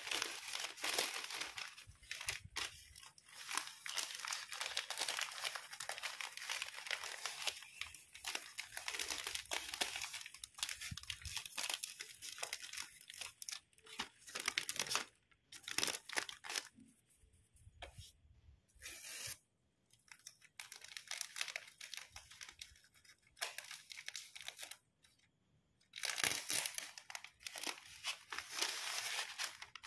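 Plastic bouquet wrapping sheets crinkling and rustling as they are handled and folded, in long spells broken by a few quieter seconds past the middle and again shortly before the end.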